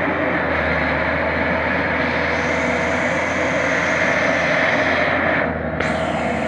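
Combine harvester's diesel engine running steadily under load as the machine works through deep mud, with a steady hiss over the engine note that dips briefly near the end.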